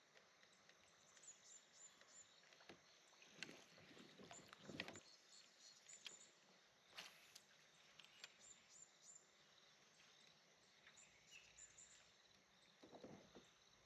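Near silence from a kayak: a few faint water splashes and light knocks, with short high-pitched chirps repeating in the background.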